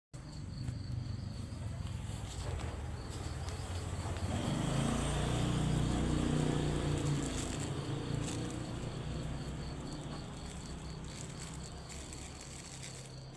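A motor's low hum that grows louder toward the middle and then slowly fades, over a steady, evenly repeating insect chirp.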